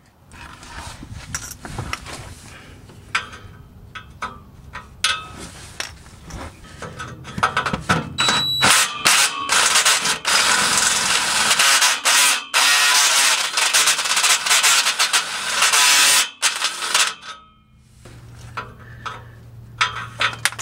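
Cordless drill driving a step drill bit through a metal exhaust pipe, enlarging the hole for an O2 sensor bung. After some quieter scraping and clicks, the bit grinds and squeals loudly through the middle, then stops.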